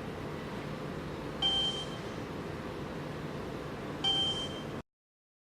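Two short electronic beeps from the SEC-E9 key cutting machine's touchscreen, about 1.5 s and 4 s in, as key numbers are keyed in, over a steady low hum. The sound cuts off abruptly near the end.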